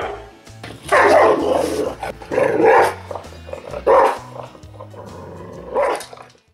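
Golden retriever barking loudly, a string of separate barks a second or so apart, with a longer bark about a second in.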